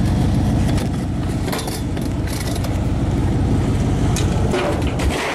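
Pickup truck engine running with a steady low rumble, while chairs being handled clank and knock a few times.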